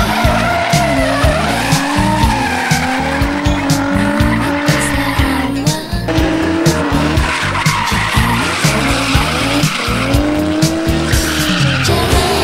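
Drift car's engine revving up and down with tyre squeal as a Nissan 350Z slides sideways through a corner. The sound briefly drops about halfway and changes near the end as another car's engine takes over.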